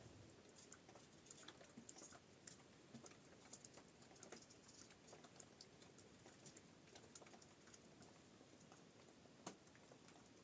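Near silence with faint, irregular small clicks and ticks, one a little louder near the end.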